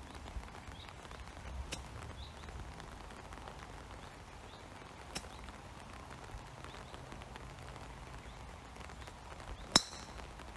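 A wood-type golf club strikes a ball off the fairway once, near the end: a single sharp crack with a brief metallic ring. Before it there are two much fainter ticks over soft outdoor background with faint chirps.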